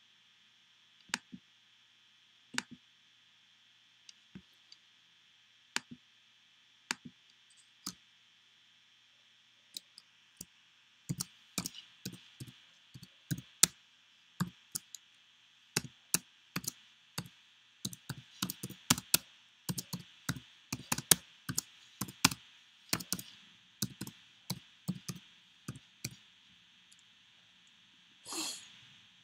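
Typing on a computer keyboard: a few scattered key or mouse clicks at first, then from about ten seconds in a fast, uneven run of keystrokes. A short hiss follows near the end.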